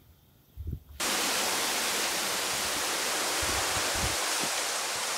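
A loud, steady rushing hiss that starts abruptly about a second in, with a few soft low thumps.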